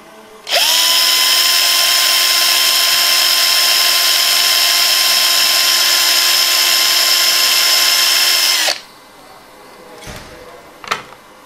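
Electric drill boring a hole into a wooden model-tree trunk blank. It speeds up about half a second in, runs at a steady speed for about eight seconds, then winds down and stops.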